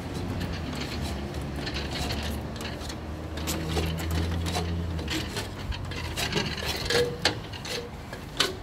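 A person climbing down a ladder: scattered knocks and clicks of shoes and hands on the rungs, with rubbing from the body-mounted camera against clothing, over a low steady hum in the first half.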